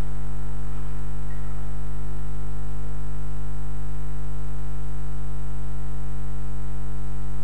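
Loud, steady electrical mains hum on a sound system: a low buzz with a ladder of evenly spaced overtones, unchanging throughout.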